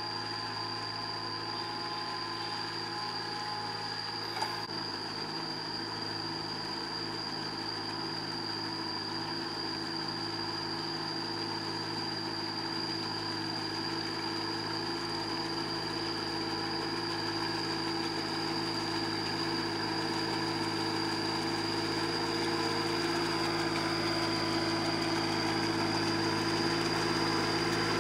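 Small tractor's engine running at a steady speed as it pulls through a flooded rice paddy on cage wheels, puddling and levelling the mud. There is a single sharp click about four seconds in.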